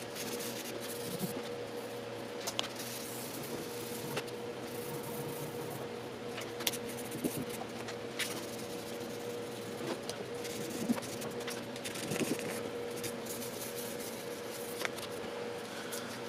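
Fine 1200-grit sandpaper rubbed by hand over the painted steel tailgate, a soft steady scratching over a steady hum, with a few light clicks scattered through.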